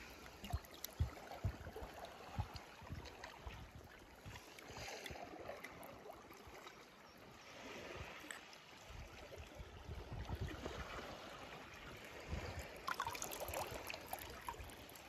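Faint water sloshing and trickling, with scattered soft knocks.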